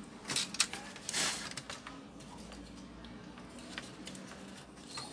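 Light clicks and a short scraping rustle from hands handling a laptop motherboard and its small wires and connectors during reassembly, the loudest a brief scrape just after one second in, then a few faint ticks.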